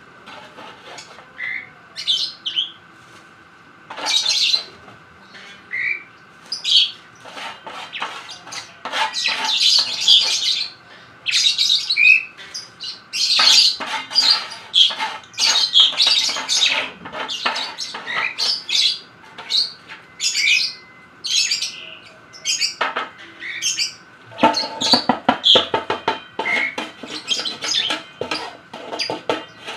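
Lovebirds chirping and squawking in quick, shrill calls, thickest through the middle and again near the end, over a faint steady hum.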